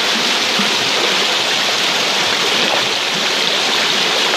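Shallow river water rushing steadily over rocks, a constant hiss of flowing water.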